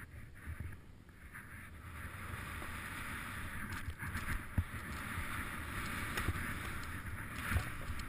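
Snowboard sliding through deep fresh powder: a steady hiss of snow under the board that grows louder about two seconds in, with a few low thumps from bumps along the way.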